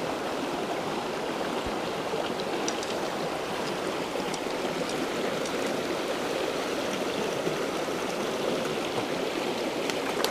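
Small rocky creek running over stones in a shallow riffle: a steady rush and gurgle of water, with a few faint light ticks over it.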